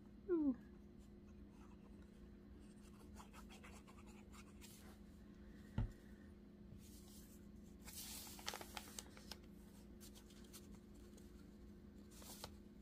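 Faint paper handling: a paper cutout is rubbed and pressed as it is glued down onto a journal page, with scattered small rustles and clicks. There is a short falling tone just after the start and a single sharper click about six seconds in.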